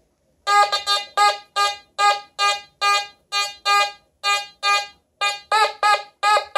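Nokta Fors Core metal detector's target tone: a rapid series of short beeps at one steady pitch, about two to three a second and closer together near the end, as a silver Barber half dollar is swept over the coil. The beeps signal a high-conductivity silver target reading 94 to 95 on the target ID.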